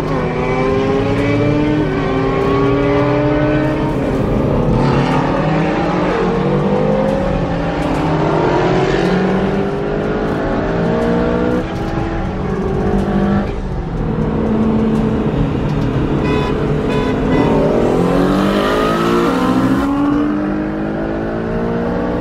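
Twin-turbo Ford Mustang Shelby GT350's 5.2-litre V8 accelerating hard. Its note climbs in pitch several times and drops back between each climb, as in a run through the gears.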